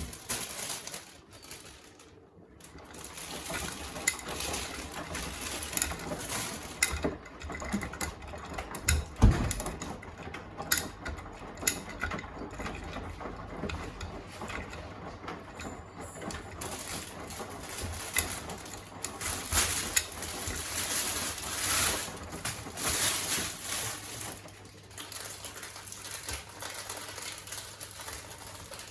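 Beko WTK104121A washing machine washing a full load: the drum turns and the laundry tumbles and sloshes in the water with small clicks and knocks, swelling and easing, and one louder thump about nine seconds in.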